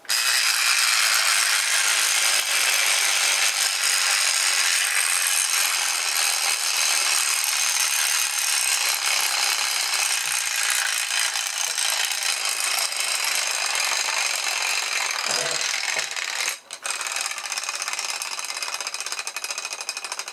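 3D-printed plastic clockwork motor running down after being wound: its escapement and gear train give a rapid, continuous rattle of ticks as the spring unwinds. There is one brief break about three-quarters of the way through, and it fades a little toward the end.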